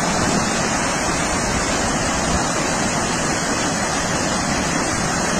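Floodwater of a river in spate rushing past: a steady, loud, unbroken rush of water.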